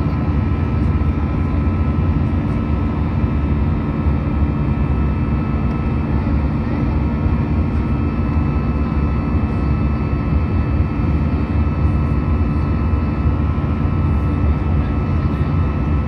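Steady cabin noise of an Airbus A319 climbing out after takeoff, heard inside the cabin: a deep, even rumble of airflow and its CFM56 turbofan engines, with a few faint steady whining tones above it.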